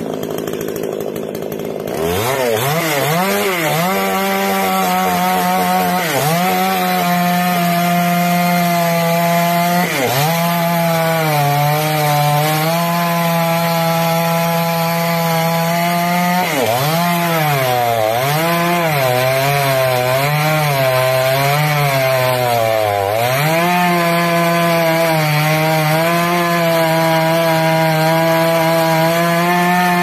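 Two-stroke chainsaw revving up sharply about two seconds in and cutting into a thick felled palm trunk. Its pitch dips several times as the chain bogs down in the wood, wavers up and down for several seconds past the middle, then holds steady at high revs.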